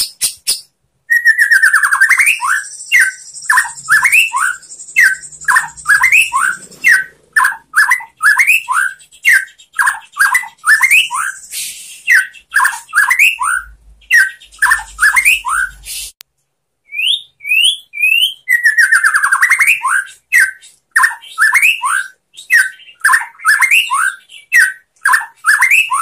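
White-rumped shama singing a fast run of repeated short whistled notes, each sweeping up or down in pitch, about two to three a second. The song breaks off abruptly for about a second two-thirds of the way through, then starts again.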